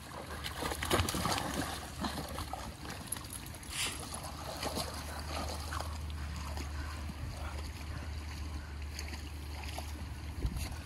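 Creek water running, with scattered small splashes over a steady low rumble, and one louder splash about four seconds in.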